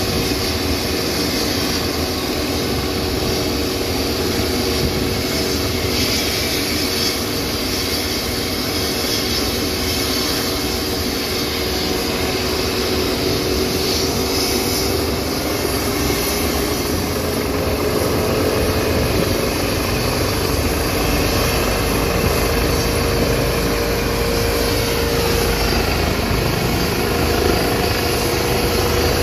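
Airbus EC135 helicopter running on the ground with its rotor turning, a steady turbine whine and rotor noise whose pitch rises slightly past the middle.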